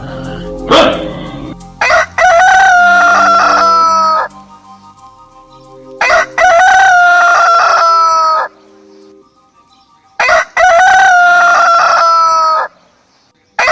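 A rooster crowing three times, each crow a short first note followed by a long held call that falls slightly in pitch, about four seconds apart. A short, sharp loud sound comes just before the first crow.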